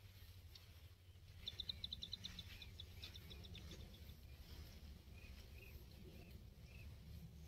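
A small bird calls a fast run of short, high notes, about seven a second, for a couple of seconds, then gives a few fainter, lower chirps, over a low rumble.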